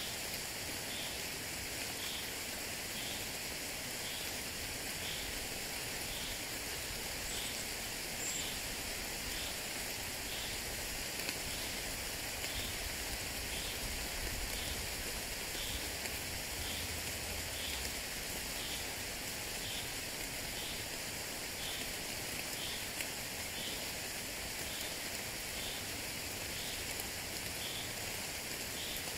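Steady gentle rain falling, an even hiss with no single drops standing out, with a faint high chirp repeating about once a second.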